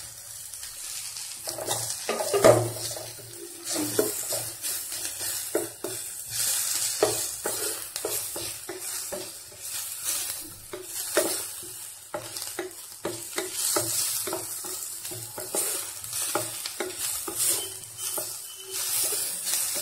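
Chopped onions and tomatoes sizzling in oil in a stainless steel pan, stirred and scraped with a spatula in repeated short strokes. There is a louder knock about two and a half seconds in.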